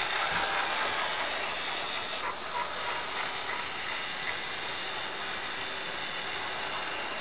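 Model freight train running past on its track loop: a steady rolling hiss of wheels on the rails with a faint electric motor hum from the diesel locomotives, and a couple of small clicks a little over two seconds in.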